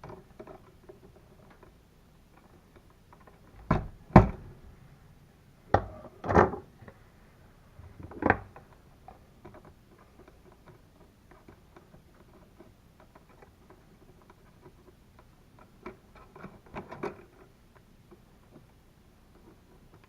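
Hand tools working electrical wire: wire strippers and pliers clicking and snapping as insulation is stripped and the wire ends are bent. A few sharp clicks come about four to eight seconds in, with a smaller cluster later.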